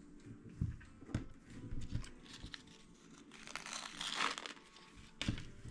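Small plastic parts bag crinkling as it is handled, with a few light clicks of small parts and screws, and a longer rustle about two-thirds of the way in.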